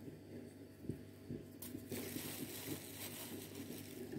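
Faint handling sounds of chopped nuts being sprinkled by hand over a dish of sheer khurma: soft irregular knocks, with a rustle lasting about a second and a half from about midway, over a faint steady hum.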